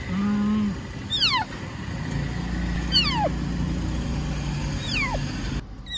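Young kitten crying from inside a pet carrier: three high, thin cries that slide steeply down in pitch, about two seconds apart, closer to a chick's peep than a full meow. A short low hum sounds at the very start, and a low traffic rumble from the bus stop runs under the cries from about two seconds in.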